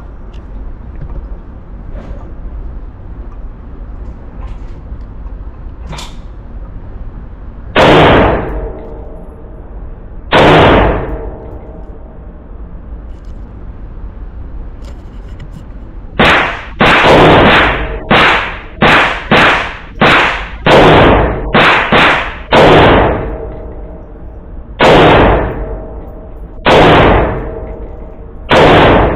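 Great Lakes Firearms GL-15 AR pistol in .223 Wylde, with a 7.5-inch barrel and muzzle brake, firing semi-automatic shots on an indoor range, each with a short echo. Two single shots come first, then a quick string of about ten, then three more spaced shots near the end.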